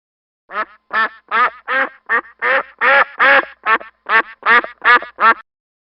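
Domestic duck quacking, about a dozen loud quacks in quick succession.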